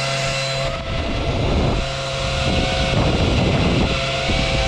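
Upgraded exhaust fan of an Xtool F1 Ultra laser engraver running steadily, a whir with several steady tones. From about a second in, its exhaust air rushes over the vane anemometer held at the outlet, adding a rough buffeting.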